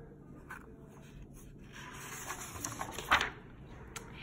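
A picture book's paper page being handled and turned: a soft rustle building from about two seconds in to a sharper swish near the end of the turn, then a light tap shortly before the end.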